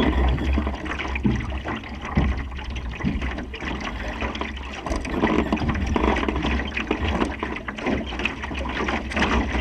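Water rushing and splashing along the hull of a Supernova sailing dinghy under way, with a steady low rumble under it.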